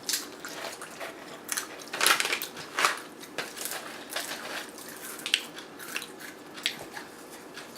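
A person chewing a crunchy spicy snack, with irregular crisp crunches, the loudest about two seconds in.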